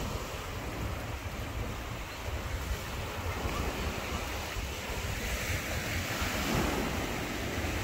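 Small waves breaking and washing up a sandy beach, with wind buffeting the microphone. The surf grows louder about five seconds in.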